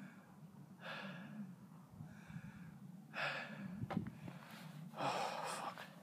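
A man breathing hard and out of breath after jogging, with heavy breaths about every two seconds, the strongest near the middle and near the end. A brief knock about four seconds in.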